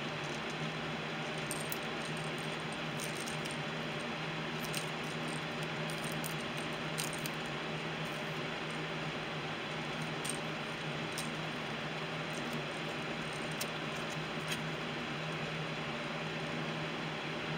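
Steady mechanical hum with hiss, and a scattering of faint light ticks.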